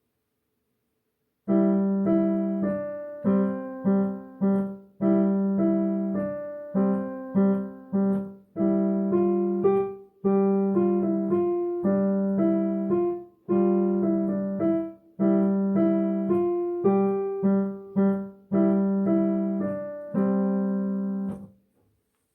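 Piano-tone keyboard playing a simple children's song melody over held low notes, each note dying away. It starts about a second and a half in and stops shortly before the end.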